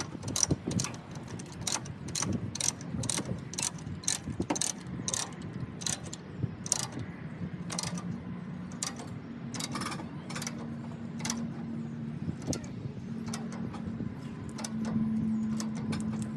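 Ratchet chain binders being cranked tight, the pawl clicking over again and again in an uneven rhythm, about one or two clicks a second, as the chains tying down a Bobcat are tensioned. A steady low hum comes in about halfway through.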